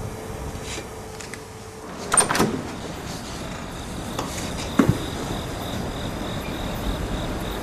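An interior door being opened: a click and rattle of the latch about two seconds in, then a single knock just before five seconds, over a faint steady background hum.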